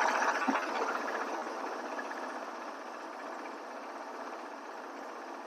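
Wood-Mizer LT40 Wide sawmill's engine running steadily, easing off over the first couple of seconds to a lower even level. A light knock about half a second in.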